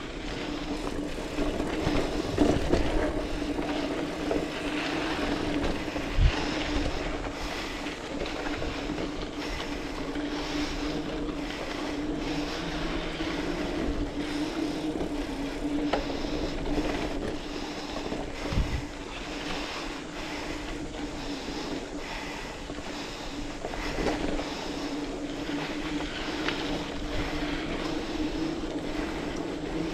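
Specialized Rockhopper mountain bike rolling over a dirt trail: the knobby tires hum steadily and the bike rattles, with a few sharp knocks over bumps, the loudest about six seconds in and another near 18 seconds.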